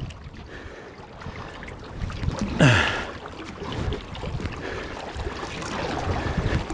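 Kayak paddling: the paddle splashing and dripping in the water, with wind on the microphone. A short grunt from the paddler breaks in about two and a half seconds in.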